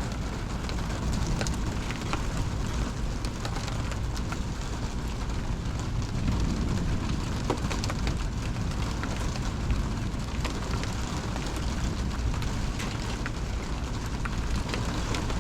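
Heavy thunderstorm rain pouring down and pattering on a hard surface: a steady hiss dotted with many sharp drop impacts, over a low steady rumble.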